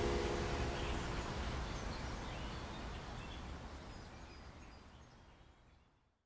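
Outdoor park ambience: a low, steady city rumble with a few faint bird chirps, fading out steadily to silence. The tail of a held music chord dies away about a second in.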